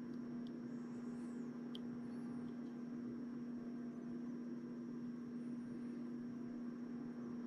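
Steady low electrical hum over faint room noise, with two faint ticks in the first two seconds.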